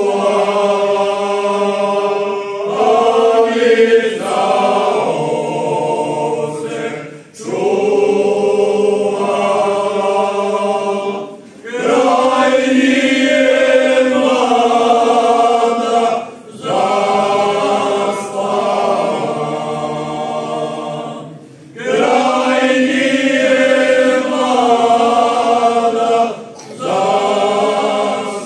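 Men's folk singing group singing a cappella in several-part harmony: long held chords in phrases of about four to five seconds, with short breath pauses between them.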